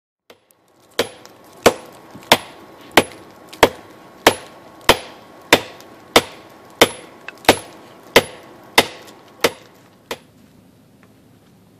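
Hammer blows on red-hot steel held in tongs on a small anvil, forging a knife blade: about fifteen even strikes, roughly one and a half a second, each with a brief metallic ring. The last, weaker blow comes about ten seconds in.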